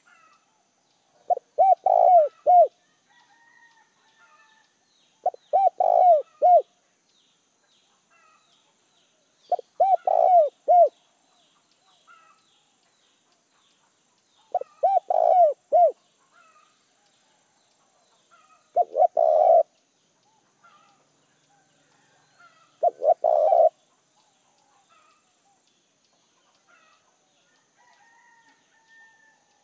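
Spotted dove cooing: six phrases about four seconds apart, each a run of a few low coo notes lasting about a second. Faint chirps of other birds sound in the gaps.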